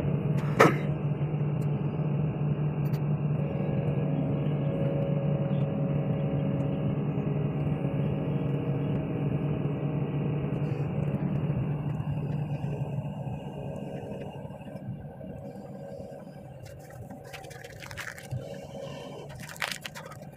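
Excavator's diesel engine running with a steady low hum, easing off to a quieter run about two-thirds of the way through. A few sharp metallic knocks of the anchor chain come near the end.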